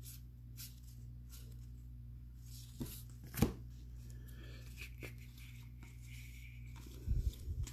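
Trading cards handled and slid against one another as a stack is sorted by hand, with faint rustles and clicks and one sharp snap about three and a half seconds in, over a steady low electrical hum. A few low thumps come near the end.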